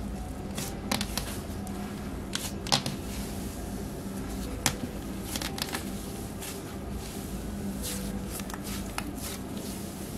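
Elmer's cloud slime crackling and crinkling as a hand presses and stretches it, with irregular sharp little pops and crackles over a faint steady hum.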